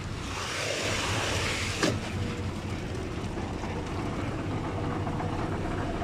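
Concrete transit mixer truck's engine running steadily with a low hum. A rushing noise fills about the first two seconds and ends in a single sharp knock.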